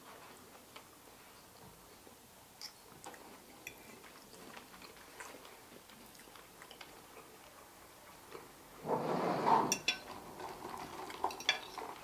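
Quiet eating sounds: forks tapping and scraping on plates, with chewing. About nine seconds in comes a louder burst of noise, then several sharp clinks of cutlery on plates.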